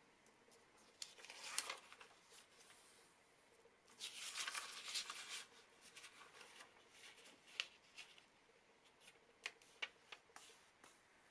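Origami paper handled and creased by hand, quietly: a short rustle, a longer rustle about four seconds in as the sheet is turned over, then a few light ticks and taps as the folds are pressed.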